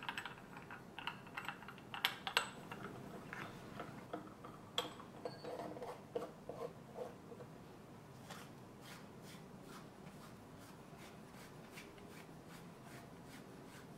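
Brass chakri press being handled: light metal clicks and taps as the lid is closed, then a run of faint, even ticks, about two to three a second, as the press's screw handle is turned.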